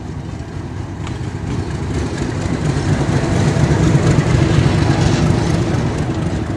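Metre-gauge diesel locomotive passing close at slow speed, its engine rumble growing louder to a peak about halfway through, then easing as the passenger coaches roll past.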